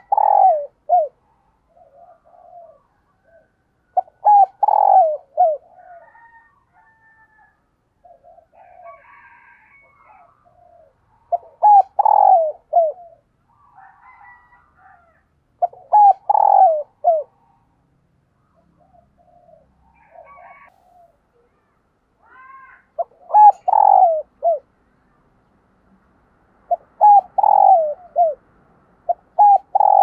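A caged decoy spotted dove cooing its calling song: six phrases of several short, low coos, one every four to seven seconds, with fainter bird chirps in between.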